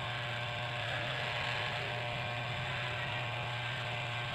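Electric hair clipper running with a steady buzz while trimming the hair at the back of the neck.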